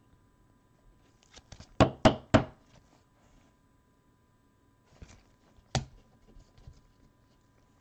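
Sharp knocks and taps of trading cards and a clear plastic card holder being handled and set down on a tabletop by a gloved hand: three loud knocks in quick succession about two seconds in, then two more a few seconds later.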